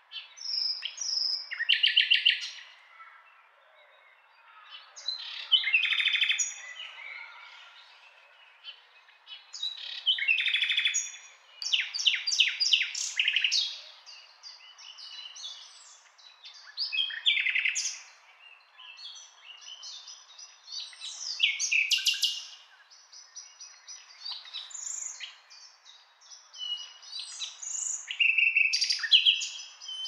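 Nightingale singing: separate, varied phrases of rapid repeated notes and clear whistles, one every few seconds with short pauses between.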